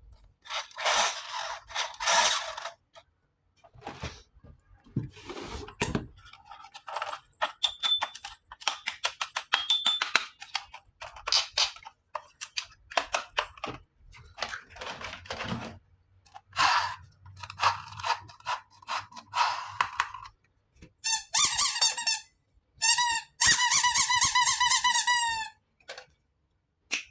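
Plastic toy parts and packaging being handled: a run of clicks, rustles and squeaks. Near the end comes a loud, wavering electronic toy tone lasting a few seconds.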